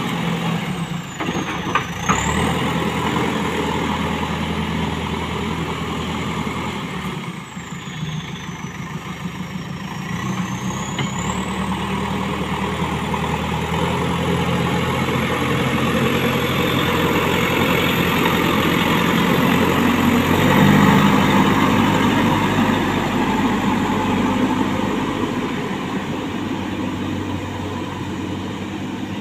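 Diesel engine of a JCB backhoe loader running under load as the front bucket pushes and spreads soil, with a couple of sharp knocks about two seconds in. The engine grows louder, working hardest about two-thirds of the way through, then settles.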